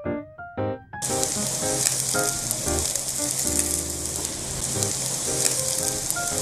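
Shredded-vegetable pancakes (potato, carrot, zucchini and enoki batter) sizzling steadily in hot oil in a frying pan. The sizzle starts suddenly about a second in, after a moment of light piano music, which carries on faintly underneath.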